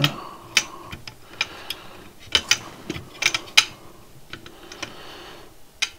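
Irregular small sharp clicks and taps of hands handling a prototype circuit board in a PCB holder: component leads being bent and pressed through the board's holes.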